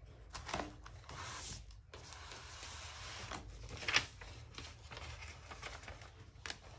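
Hands handling a glitter-coated water bottle and a sheet of paper on a craft table: rustling and light knocks, with a sharper knock just before four seconds in as the bottle is set down, over a steady low hum.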